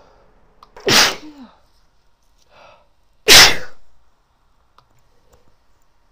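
A woman sneezing twice, about two and a half seconds apart, the second sneeze louder, with a short breath in just before it. The sneezes are set off by snuff.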